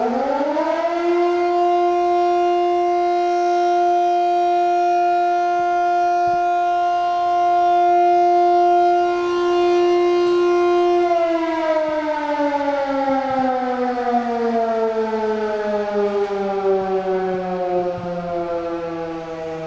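A siren sounding: its pitch rises quickly, holds one steady tone for about eleven seconds, then slowly falls.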